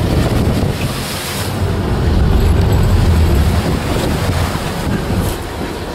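Wind buffeting the microphone over the rush of waves against a moving boat's hull, with a heavy low rumble that swells about two seconds in.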